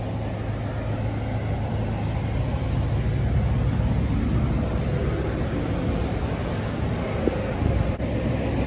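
A vehicle engine running steadily, a low rumble under outdoor traffic noise.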